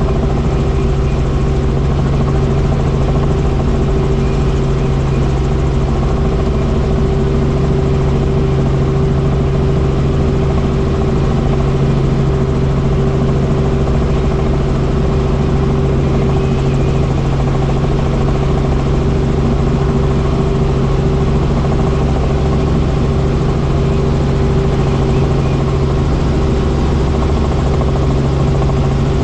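Helicopter in flight: a steady drone of engine and rotor, with a strong low hum and a higher steady whine that hold unchanged.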